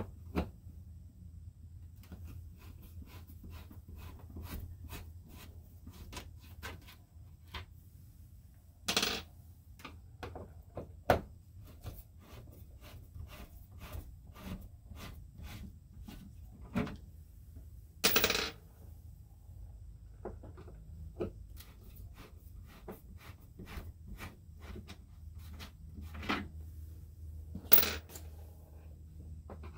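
Screws being backed out of the plastic ceiling trim of an RV roof vent fan with a screwdriver: a long run of quick small ticks, with a few louder clacks as the screws and trim are handled.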